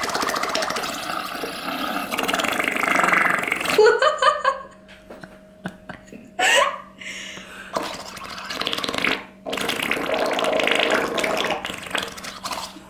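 Air blown through a plastic drinking straw into a lump of slime, bubbling and gurgling with burp-like pops: one long blow for about four seconds, then several shorter blows with pauses between them.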